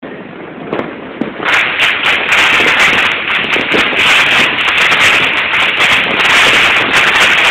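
A dense, rapid crackle of many firecrackers going off at once, starting about a second and a half in and running on without a break.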